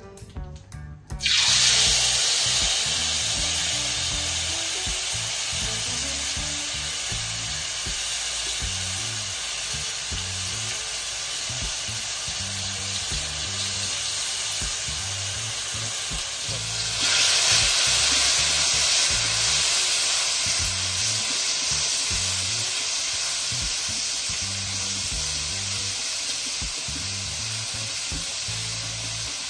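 Spice paste frying in hot oil in a metal wok: a loud sizzle that starts suddenly about a second in as the ready-made rawon paste hits the oil, then swells louder again about halfway through.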